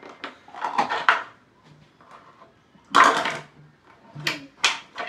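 Plastic modeling-clay tubs and lids knocking and clattering on a wooden tabletop as they are handled: scattered knocks, with a louder clatter about three seconds in.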